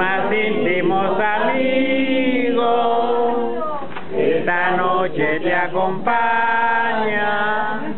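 A family group singing a birthday song together, several voices in unison with drawn-out notes.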